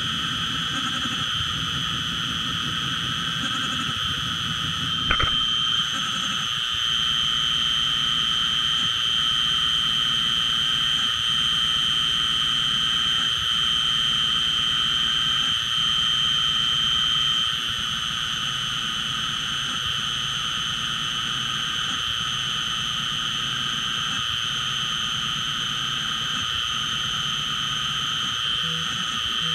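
Small CNC milling machine running, its spindle giving a steady high whine while an end mill cuts a white Delrin block. A single sharp click about five seconds in, and the cutting grows a little louder for about ten seconds after it.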